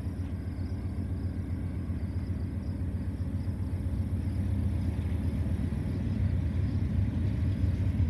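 Two GE C44-9W diesel-electric locomotives heading an intermodal freight train: a steady low engine rumble that grows gradually louder as the train approaches.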